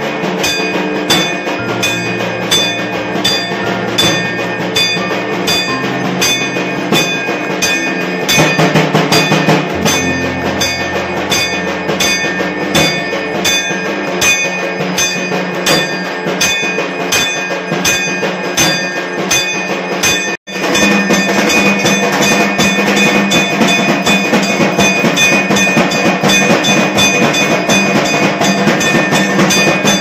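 Temple bells ringing and drums beating in a steady rhythm for the aarti, with high ringing tones held between strokes. The sound cuts out for an instant about two-thirds of the way through.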